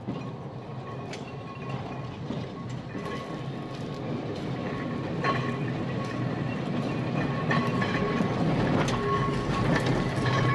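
Manx Electric Railway Car No. 1, a Victorian electric tramcar, rolling slowly over the rails. Its wheels click over rail joints and points, getting louder as it draws near and passes. A thin steady whine runs throughout.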